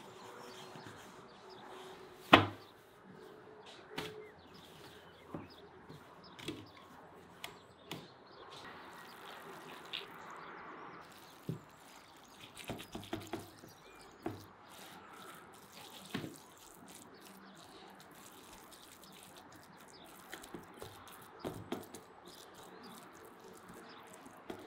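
Hand food-preparation sounds: soft pats, taps and light clicks as dough is folded on a wooden board and raw minced-meat filling is pressed out over dough in a metal baking tray, with one sharp knock about two seconds in.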